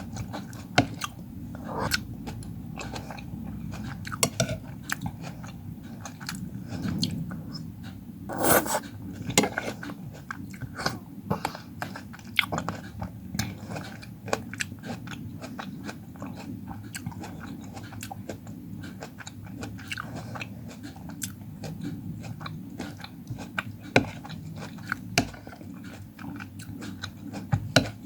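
Close-miked chewing and biting of fruit: wet, crunchy mouth sounds with many irregular small clicks and a few louder bites, over a steady low hum.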